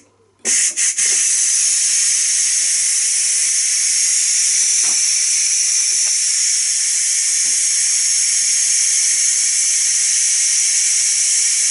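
Ninja Foodi pressure cooker's release vent opened to let off the pressure after pressure cooking: a couple of short spurts about half a second in, then a loud, steady, high-pitched hiss of escaping steam.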